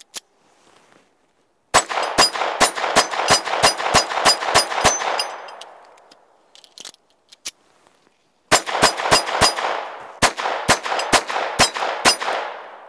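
Ruger LCP II .22 LR pocket pistol fired rapidly in two strings of about ten shots each, roughly three to four shots a second. A pause of a few seconds separates the strings, and each string trails off in an echo.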